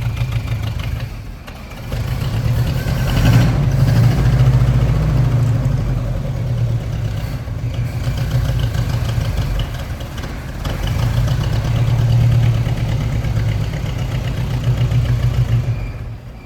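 Carbureted gasoline engine running, its revs rising and falling with a couple of brief dips. It is running on fresh gas after sitting seven years on old gas and having its carburetor cleaned out, and it is not yet idling smoothly.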